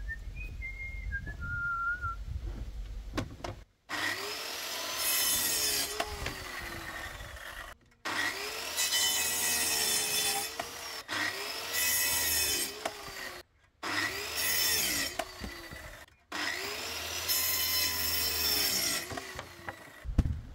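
Hand saw cutting wood in steady back-and-forth strokes, about one a second, in several stretches that each break off abruptly. It is preceded by a few short whistled notes.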